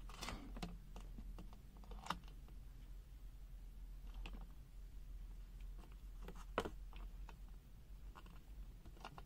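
Scattered faint clicks and taps from test leads and probes being handled at a workbench, with two louder clicks, about two seconds in and about six and a half seconds in, over a faint low hum.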